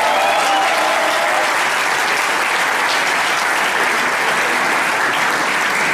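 Audience applauding steadily, with a voice briefly heard over the clapping at the start.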